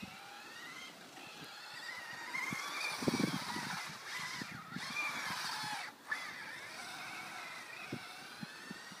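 Brushless electric motor of a Vaterra Glamis radio-controlled car whining, its pitch rising and falling as the throttle is worked, cutting out briefly twice near the middle. Short low knocks come from underneath, most of them around a third of the way in.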